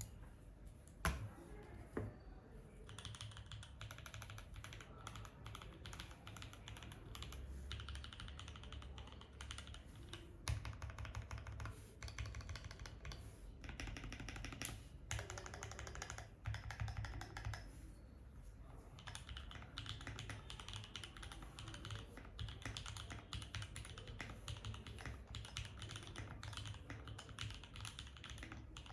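Typing on a Tofu 65 mechanical keyboard with lubed TTC Hey linear switches, DCP keycaps, a polycarbonate plate and an O-ring mount. Fast, continuous keystrokes, with a few single strokes near the start and a short pause a little past the middle.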